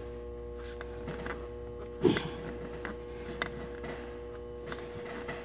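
A spin-on fuel filter being screwed onto its adapter by a gloved hand: faint scraping and small clicks, with one sharper knock about two seconds in. A steady electrical hum runs underneath.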